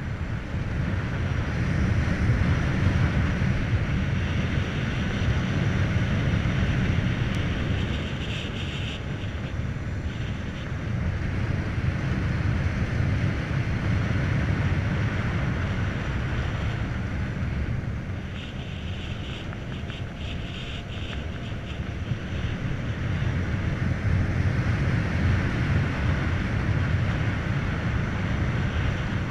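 Wind rushing over the microphone with tyre and road noise from a Volta BCN Sport electric motorcycle riding at speed, with no engine note. The rush swells and eases with speed, dipping in the middle and picking up again near the end.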